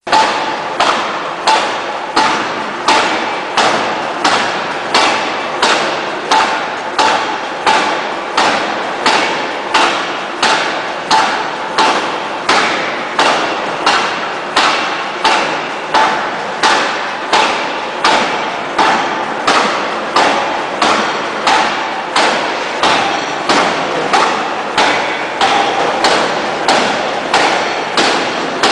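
Electro-hydraulic open-die forging hammer striking a red-hot steel shaft blank, forging it into a shaft: heavy blows with a metallic ring, repeated in a steady rhythm a little faster than one a second.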